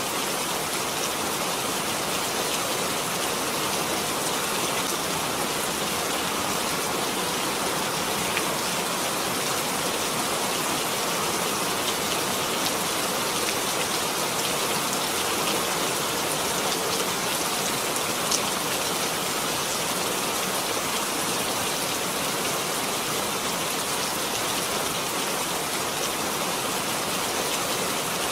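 Steady rain falling: an even hiss with faint individual drop ticks here and there.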